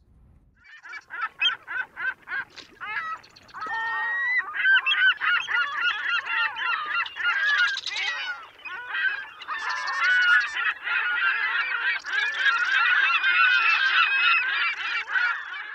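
Many birds calling over one another: a few separate calls at first, then a dense, overlapping chorus of honking calls from about four seconds in.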